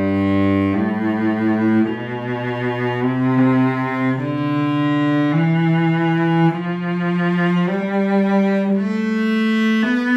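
2003 Gliga Cristian cello from Romania, played solo with the bow: a slow line of held notes changing about once a second, some with vibrato, climbing gradually in pitch.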